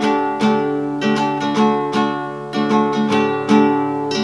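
Acoustic guitar strummed in a steady rhythm, playing the show's opening theme music.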